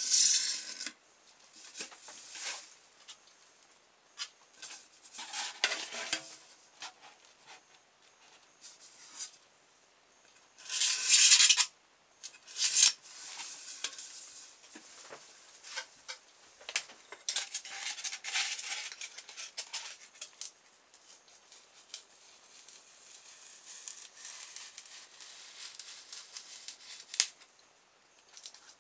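Intermittent scraping and rubbing with light metallic clatter from handling on a workbench: a perforated metal waste bin and a slab of polystyrene foam being moved about and marked with a marker pen. The loudest scrape comes about eleven seconds in.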